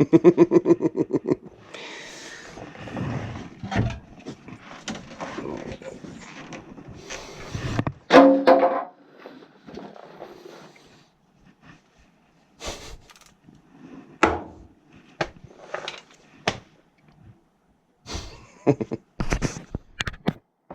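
Clicks, knocks and clatter of furnace parts being handled during replacement of the cold header box. It opens with a brief rapid rattle, and a louder knock comes about eight seconds in.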